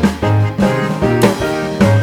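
Background music: an upbeat jazzy tune with drums, bass and pitched instruments keeping a steady beat.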